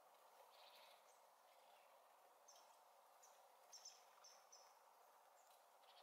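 Faint calls of small songbirds: short, high chirps, bunched into a quick run of about four notes a little past the middle. Beneath them, a steady faint background hiss.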